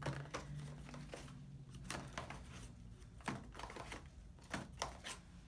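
Scattered clicks and light knocks of metal clipper blades being handled and changed over, with a 7 blade going onto the dog clipper while its motor is off.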